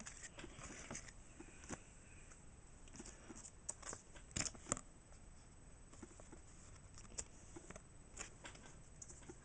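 Faint, scattered ticks and rustles of Pokémon trading cards and booster-pack wrappers being handled, with a few sharper clicks around the middle.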